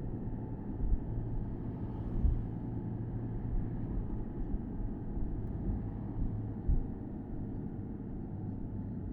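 Porsche Boxster S 987.2's 3.4-litre flat-six running at a steady, low engine note while cruising with the top down, over a continuous low road and wind rumble. A few short low thumps stand out, about a second in, a little after two seconds and near seven seconds.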